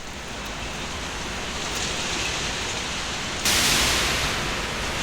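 Rain sound effect opening the song, a steady hiss fading in. About three and a half seconds in, a sudden louder, brighter burst of hiss sets in and slowly dies away.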